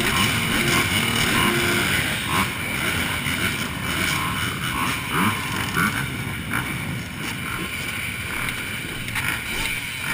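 Motocross bike engines running.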